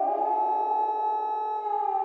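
Civil defense nuclear-attack warning siren wailing. Its pitch finishes climbing right at the start, holds at the top, and begins to slide back down near the end.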